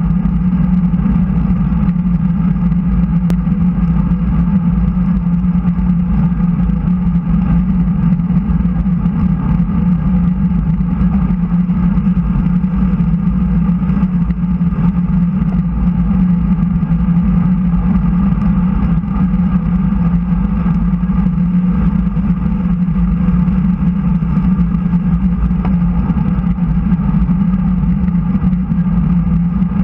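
Steady wind rush and tyre rumble picked up by a bicycle-mounted action camera riding at about 34 km/h on smooth circuit asphalt, heaviest low down.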